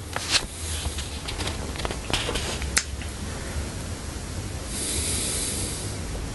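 Low steady hum of room noise, with a few small sharp clicks in the first three seconds and a brief hiss about five seconds in.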